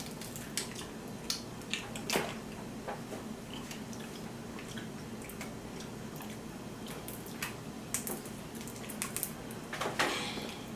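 Wet, squishy eating sounds of a seafood boil being picked apart by hand, with scattered sharp clicks and crackles of crab and crawfish shells being broken open.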